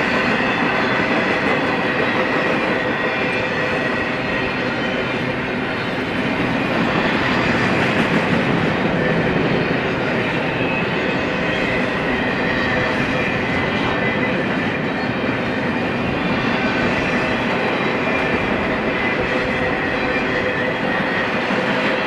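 Cars of a BNSF intermodal train (trailers on flatcars and double-stack well cars) rolling past steadily: a continuous rumble of steel wheels on the rails, with a faint, thin high ringing tone over it.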